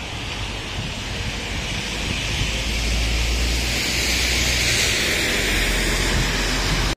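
Rain hissing on an umbrella and a wet street, with wind rumbling on the microphone; the hiss and rumble grow louder about two seconds in.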